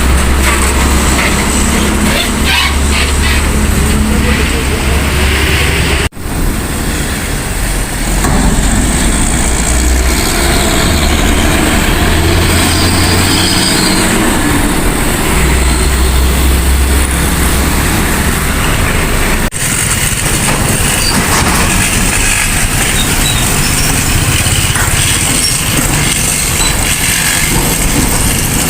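Heavy road traffic: diesel engines of large trucks rumbling as they pass, over steady road noise, the low rumble swelling and easing. The sound cuts out abruptly twice, about six seconds in and again about two-thirds through.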